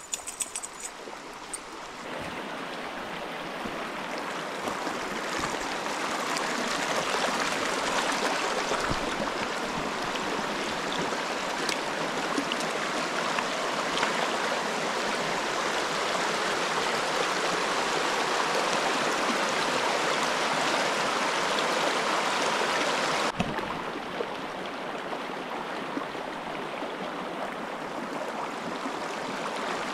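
Shallow rocky stream rushing and gurgling over stones, a steady wash of water. It grows louder over the first few seconds, then drops suddenly and turns duller about three quarters of the way through.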